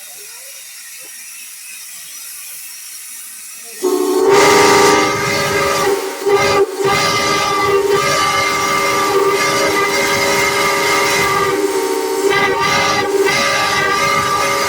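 Railroad whistle blown in a long, loud blast of several steady tones sounding together. It starts suddenly about four seconds in, after a faint hiss, and breaks off briefly twice, around six and twelve seconds in.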